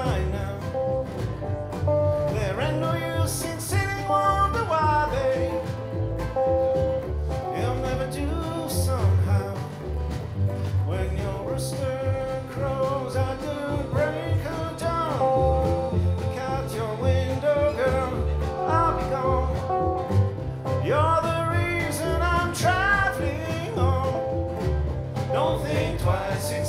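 Live acoustic country band playing: acoustic guitar, mandolin, upright bass and a snare drum.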